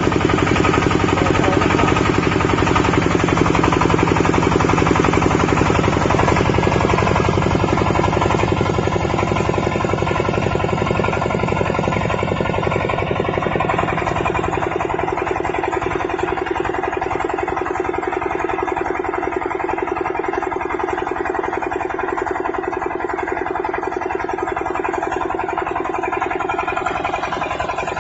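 The 25 HP diesel engine of a YETUO-150D portable water well drilling rig, running steadily with a rapid even firing beat. Its higher-pitched noise drops away about halfway through.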